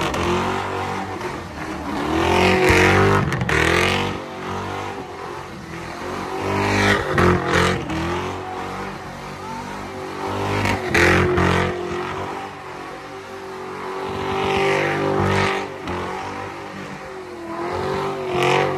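Ford Mustang doing a burnout in circles: the engine revs high and drops back again and again over the spinning, smoking rear tires. The sound swells and fades about every four seconds as the car comes round.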